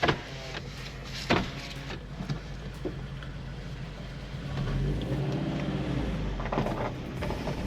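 Car's FA20 flat-four engine running steadily, heard from inside the cabin, then pulling away with the engine note rising and growing louder about halfway through. A couple of sharp clicks near the start.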